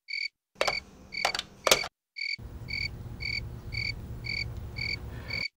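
A regular series of short electronic beeps, about two a second, each with a high and a higher pitch sounding together. A few sharp clicks come in the first couple of seconds, and a low hum runs under the beeps in the second half.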